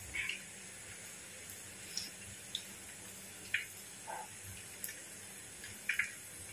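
Mustard seeds popping in hot oil in an unglazed clay pot. The pops are sparse and irregular, about one a second, some in quick pairs.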